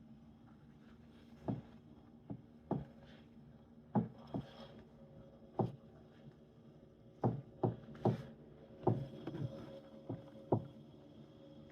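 Tacx Neo smart trainer with a bike mounted, giving a series of sharp, irregular knocks, about one or two a second, starting about a second and a half in, over a faint steady hum. The knocking is an unwanted fault noise from the trainer or bike.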